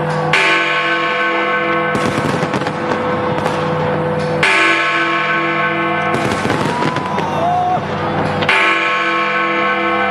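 A large tower bell struck three times, about four seconds apart, each stroke ringing on with a wavering lower hum, over scattered sharp bangs of fireworks. A whistling tone glides up and back down between the second and third strokes.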